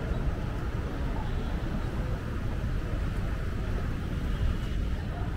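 City street ambience: a steady low rumble of traffic, with no single event standing out.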